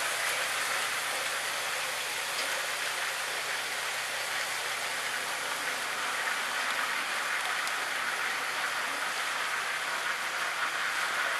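Several motorized LEGO trains running on plastic LEGO track: a steady, even rattle of wheels and motors.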